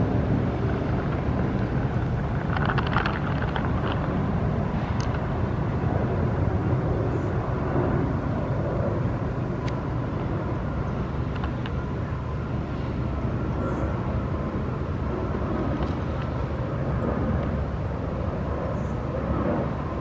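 Steady low rumble of distant engine noise, with a brief spell of faint high sounds about three seconds in.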